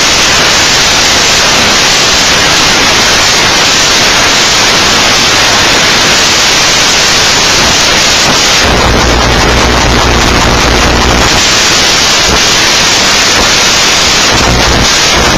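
Loud, steady static hiss. A low electrical hum joins in about nine seconds in for a couple of seconds, and again near the end.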